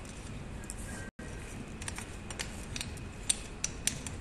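Small metallic clicks and taps as the steel tubes and fittings of a folding pull-up stand are handled and a metal pin is fitted into a hole in a frame tube; a scatter of sharp ticks in the second half, a few of them louder.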